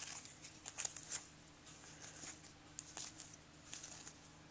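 Faint, irregular ticks and light rustles of baseball trading cards being handled and slid against each other.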